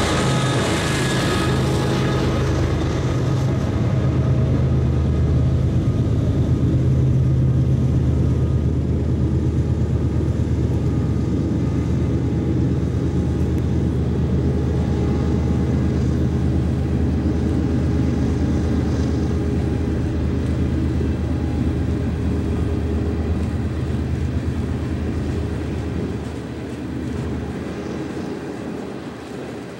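Diesel locomotives led by a GE ES44AC working a loaded coal train up a grade: a steady deep engine drone with the rumble of loaded coal hoppers rolling past. The drone fades away over the last few seconds as the locomotives draw off.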